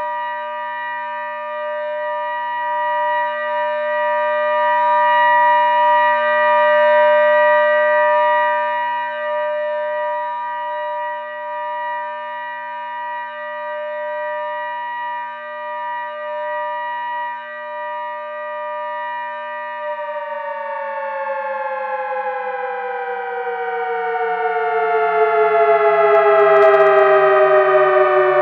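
Synthesized ACA Hurricane 130 civil defense siren built from sawtooth waves, holding a steady pitch with a slight rhythmic waver. About twenty seconds in it begins a slow wind-down, its pitch falling steadily.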